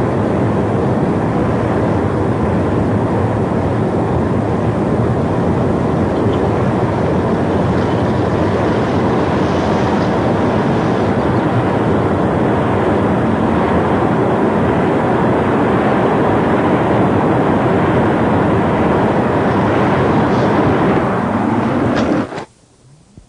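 Strong storm wind blowing in a loud, dense, steady rush with slight swells, which cuts off suddenly near the end.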